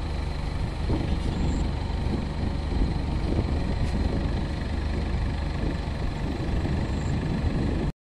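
Maxxi Bimo Evo Xtreme rice combine harvester running steadily, its engine and machinery making a continuous low rumble; it cuts off abruptly near the end.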